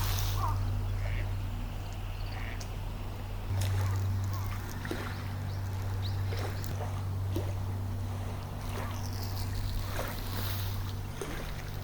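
A steady low droning hum, like a distant engine, with a few short bird chirps and scattered faint clicks.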